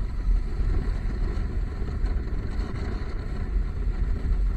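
A motorcycle riding along a road: engine and wind noise make a steady low din, muffled by the waterproof camera housing.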